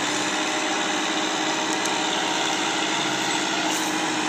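Massey Ferguson 265 tractor's three-cylinder diesel engine running steadily with an even beat, working hard to pull a heavily loaded sugarcane trolley.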